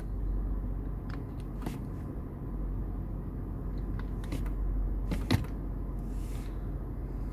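Range Rover Vogue's 4.4-litre BMW V8 idling steadily, with a few scattered clicks and knocks, the loudest about five seconds in.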